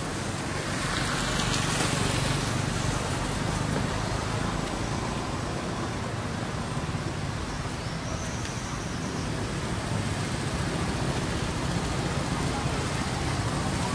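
Steady outdoor background noise with a low rumble of road traffic.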